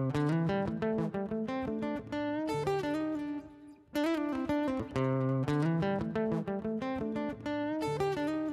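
Background music: a guitar picking a repeating melodic phrase, with a short break a little under four seconds in.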